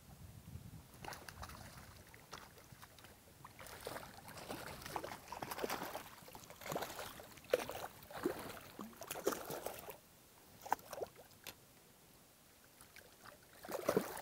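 Hooked cutthroat trout thrashing at the surface of shallow river water, irregular splashes and sloshing from about four seconds in, strongest for several seconds and then settling. A few more sloshes near the end as a hand reaches into the water to take the fish.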